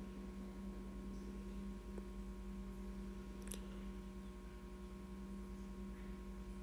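Faint, steady electrical hum, with a single light click about three and a half seconds in.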